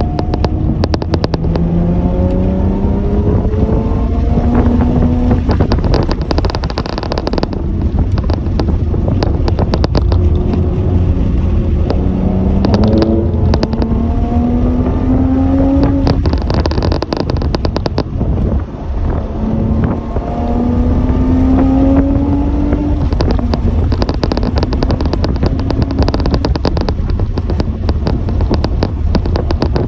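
Car engine accelerating through the gears three times: each gear is a rising pitch that drops back at the upshift and climbs again, over a heavy low rumble.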